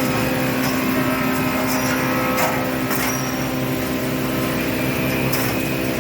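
A machine's motor or engine running with a steady hum. A few light clicks or knocks come over it about two and a half, three and five and a half seconds in.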